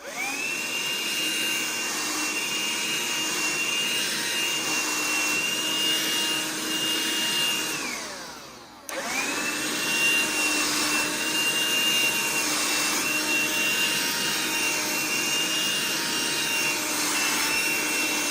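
A BLACK+DECKER dustbuster QuickClean cordless handheld vacuum runs over a bathroom mat with a steady high whine. It is switched off about eight seconds in, its motor winding down in pitch, then switched on again and runs steadily. It is not picking the dirt up well.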